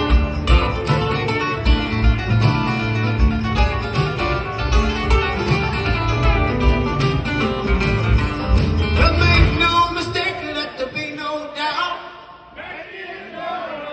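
Two acoustic guitars playing an instrumental passage in a live band performance. The music thins out about ten seconds in and drops much quieter near the end.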